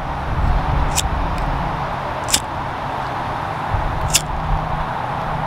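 Flint-wheel disposable lighter clicking as it is struck, three sharp clicks about one, two and a half and four seconds in, over steady background noise and a low hum.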